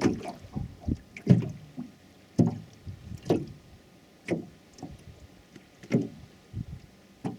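Hollow knocks and water slaps on a small fishing boat, a sharp hit roughly once a second.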